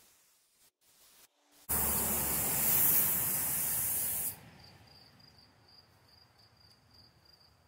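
Compressed air hissing through a gravity-feed paint spray gun in one steady burst of about two and a half seconds, starting and cutting off sharply as the trigger is pulled and released.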